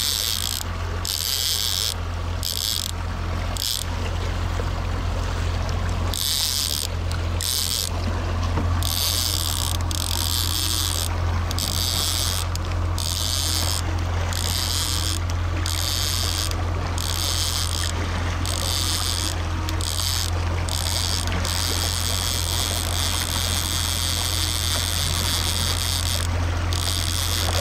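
Small outboard motor running steadily, a low hum, with a high hiss over it that cuts in and out every second or so.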